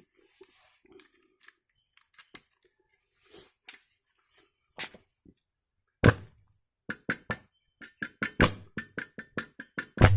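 Homemade arc welder built on a Lioa 3 kVA transformer, welding with thin rods. Faint small clicks at first, then, about six seconds in, a quick run of short sharp arc crackles as the rod strikes and the arc catches and breaks. Each crackle comes with a brief low hum from the loaded transformer.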